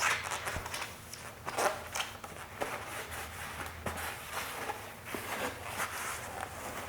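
Shop towel rubbing and wiping over a plastic motorcycle body part in irregular strokes, wiping off wax and grease remover before painting.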